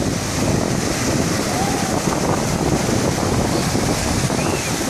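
Wind buffeting the microphone over a steady wash of sea and waves.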